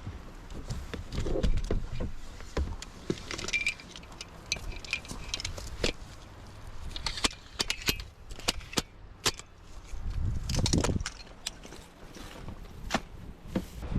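Small clicks, clinks and rattles of things being handled, some with a brief metallic ring, with low gusts of strong wind buffeting the microphone about a second in and again near the end.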